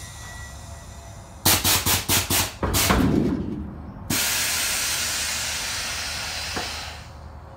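Air-ride suspension on a Chevrolet C10 being worked through its switch-box valves: a quick string of about six short blasts of air about a second and a half in, then a longer blast, then a steady hiss of air starting suddenly about four seconds in and fading out near the end, as the bags raise and lower the front of the truck.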